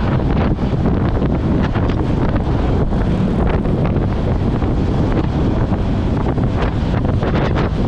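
Loud steady wind buffeting the microphone over the low rumble of a moving bus.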